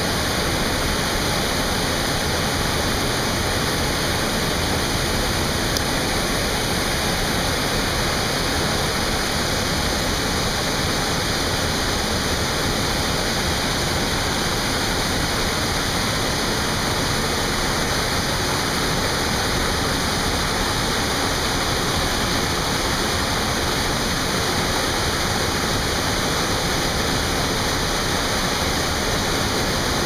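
River water pouring steadily over a low dam into churning whitewater below, a constant even rush.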